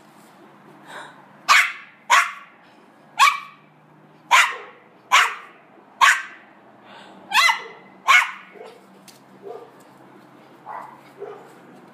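Dog barking excitedly at birds up in a tree: about eight sharp barks roughly a second apart, then only a few fainter sounds near the end.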